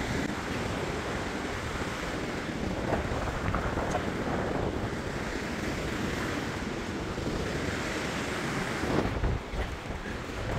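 Steady rush of ocean surf breaking on a sandy beach, mixed with wind buffeting the microphone.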